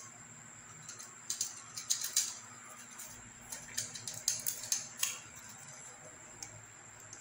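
Plastic clicks and light rattles from a selfie-stick tripod being handled, its phone clamp and body worked by hand, in two short runs of quick clicks.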